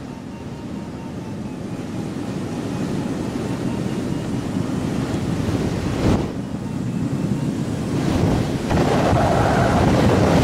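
Steady rush of airflow over a Stemme S10 motorglider's canopy, heard inside the cockpit while soaring, slowly growing louder. A single short knock about six seconds in.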